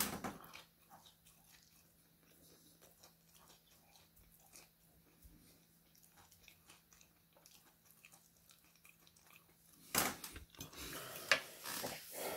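Quiet chewing with small wet mouth clicks; near the end a metal fork clinks and scrapes on a ceramic plate.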